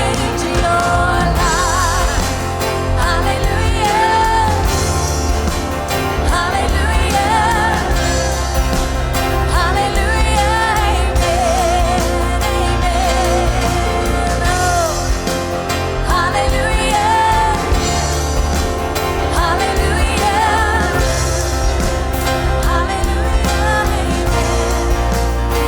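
Church worship band playing live with singers: a full band of synth, drums, bass, guitar and piano under sung vocals, steady and full throughout.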